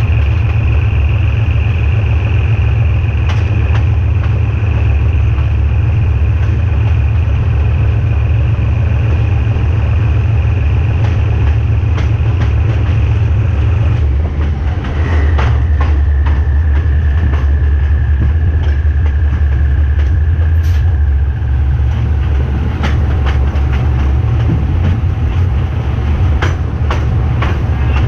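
GE diesel-electric shunting locomotive running under way, its engine giving a loud steady low drone with a high steady whine over it; the engine note changes about halfway and the whine drops to a lower pitch. From the middle on, wheels click irregularly over rail joints.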